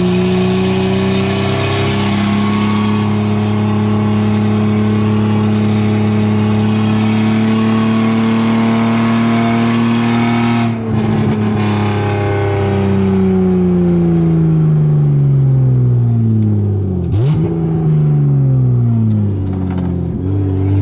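1986 BMW 325e's 2.7-litre M20 inline-six heard from the cabin through an exhaust with the catalytic converter and mufflers removed. It is loud and pulls with the revs climbing slowly for about ten seconds, then breaks off briefly. After that the revs mostly fall as the car slows, with two quick throttle blips near the end, as on downshifts.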